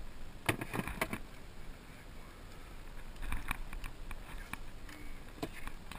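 Scattered knocks and clatter in a small jon boat as a hooked bass is brought to the boat and handled: a cluster of sharp knocks about half a second to a second in, more around three and a half seconds in, and a single knock after five seconds.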